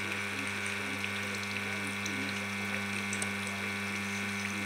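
Reverse-osmosis booster pump running steadily with a constant hum, water hissing through the membrane housing and lines.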